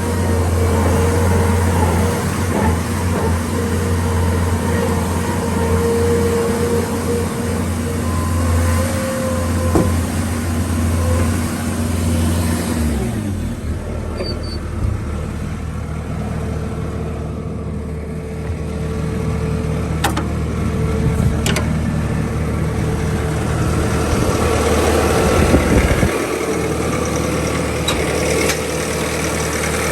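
Bobcat S550 skid steer's diesel engine running and working as the machine is driven and the loader is operated. The engine note drops about 13 seconds in and shifts again near the end, with a couple of sharp knocks about 20 seconds in.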